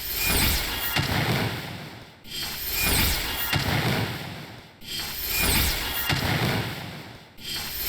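A short sound effect played on a loop, repeating about every two and a half seconds. Each repeat starts suddenly and loud with a falling high swish, then fades away before the next one begins.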